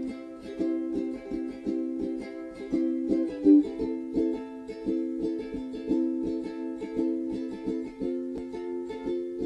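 Background music: steady strummed chords on an acoustic string instrument, in an even rhythm.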